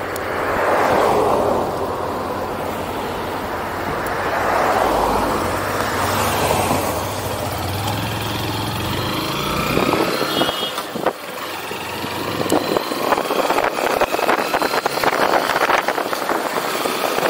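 Motorcycle engine running at low speed while cars pass close by. About ten seconds in, as the bike picks up speed, wind buffeting on the microphone takes over and grows louder.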